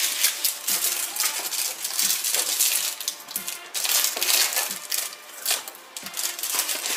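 Clear plastic candy wrapper crinkling and crackling as it is handled and pulled open, in many quick irregular rustles.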